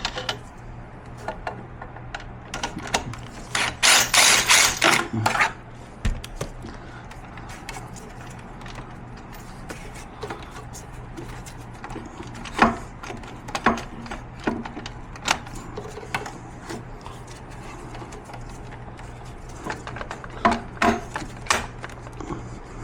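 Hand tools and metal parts clicking and knocking as a fastener on a power wheelchair's tilt actuator mount is worked loose, with a dense rattling stretch about four seconds in. A steady low hum runs underneath.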